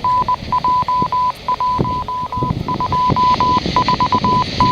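Siren-control signalling tones received over a radio scanner: a single steady-pitched beep keyed on and off in an irregular run of short and long pulses, over radio hiss.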